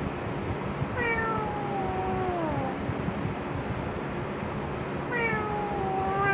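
An animal giving long, drawn-out calls that fall in pitch, twice, with a third starting at the end, over steady background noise.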